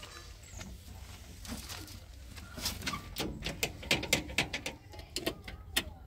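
Irregular clicks and knocks of a man climbing onto a Swaraj 843 XM tractor and working its levers, coming several a second in the second half, over a faint low hum.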